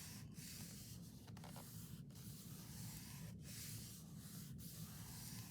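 Faint rustling and rubbing of paper and card being handled, over a low steady hum.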